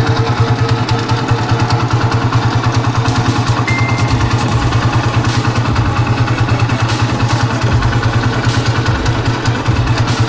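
Motorcycle engine of a tricycle running with a steady, rapid pulse.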